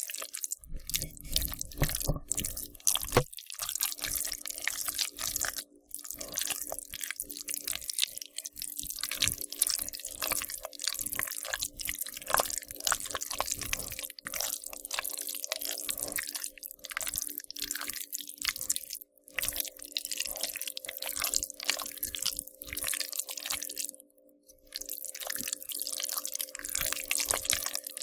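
Wet squishing and squelching of slime being squeezed and worked, a continuous run of irregular sticky smacks, pops and crackles with a few brief pauses.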